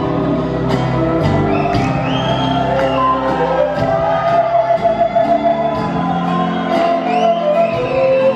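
Live band playing Andean folk-rock: a drum kit keeps a steady beat under bass and guitars, while a quena (Andean end-blown cane flute) plays the melody in held notes and slides.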